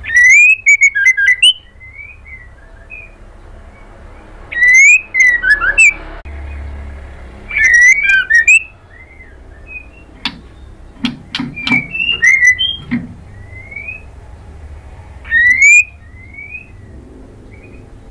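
White-rumped shama singing: four loud bursts of rising whistled phrases with sharp, high notes, with softer single whistles between them. A run of sharp clicks comes a little past halfway.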